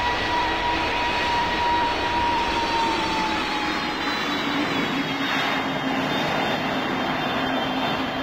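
Jet aircraft in flight: steady roar of the engines and rushing air, with a thin whine whose pitch drops slightly about three seconds in.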